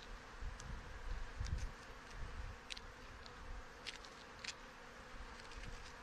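Honey bees buzzing steadily over an opened hive, with a few light clicks and some soft low rumbles in the first half.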